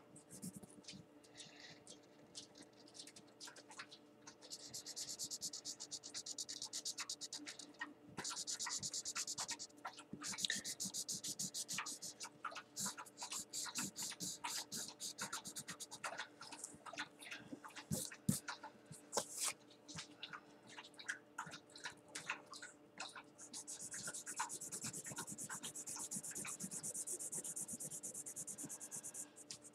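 Felt-tip marker scribbling on paper to colour in, in stretches of fast scratchy strokes with many quick ticks and taps of the tip between them. A faint steady hum runs underneath.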